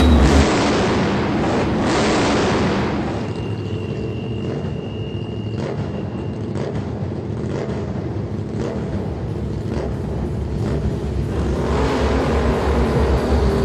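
Motorcycle engines running with a steady rumble that grows louder over the last few seconds. Loud bass-heavy music from the loudspeakers cuts out just after the start, and a steady high tone sounds for about three seconds partway through.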